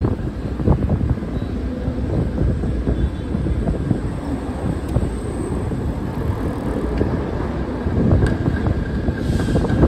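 City street traffic rumble with a PCC streetcar approaching on its rails, plus a few sharp clicks.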